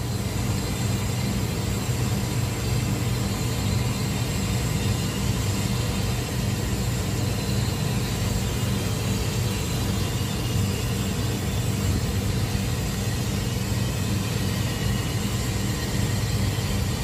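Steady low mechanical drone of running machinery, an even hum with no knocks, strikes or changes in pitch.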